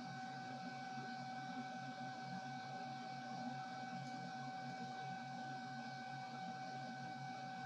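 CNC lathe's Z-axis stepper motor slowly driving the carriage toward its limit switch during homing. A steady, even whine with a low hum beneath.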